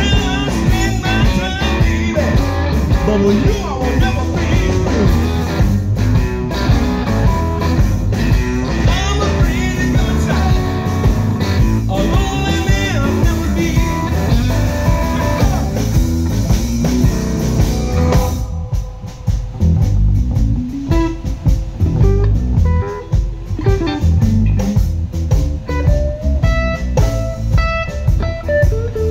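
Live electric blues band playing an instrumental passage, electric guitar over bass guitar. About two-thirds of the way through the band drops back to a quieter, sparser passage with bent guitar notes.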